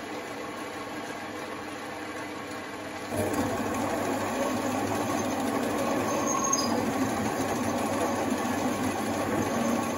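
Benchtop metal lathe (LM-250-IM mini lathe) running steadily while taking a final finishing cut on a hammer handle. The sound steps up in loudness about three seconds in.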